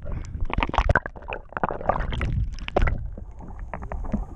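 Water sloshing and gurgling around a camera held just under the surface, heard muffled through its waterproof housing, with irregular knocks and a low churning rumble.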